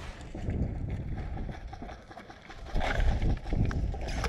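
Wind buffeting an outdoor microphone as a low uneven rumble, with a short rustle about three seconds in.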